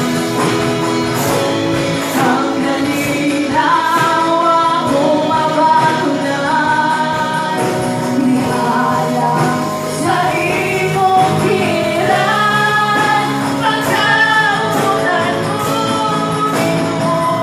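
Live worship band playing an upbeat praise song: women singing the melody into microphones over electric and acoustic guitar, with a steady beat.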